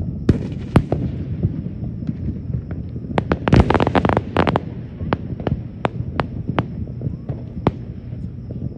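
Aerial fireworks going off: sharp bangs of shell bursts, a dense run of crackling pops about three and a half to four and a half seconds in, then scattered single reports.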